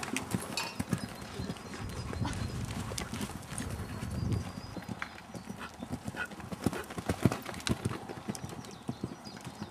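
Horses' hoofbeats on the sand footing of a riding arena, an irregular run of dull knocks from horses being ridden past, with a low rumble through the middle.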